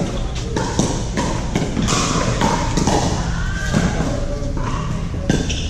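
Pickleball paddles striking a plastic ball in a doubles rally: a run of sharp, irregularly spaced pops over steady background noise in a large hall.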